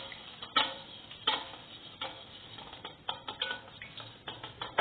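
Wire whisk beating eggs in a stainless steel bowl, its wires clinking and scraping against the metal in repeated irregular strokes.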